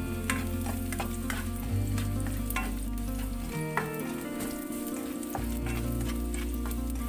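Sliced garlic sizzling in hot sesame oil in a nonstick frying pan, with a spatula stirring and scraping against the pan in many quick strokes.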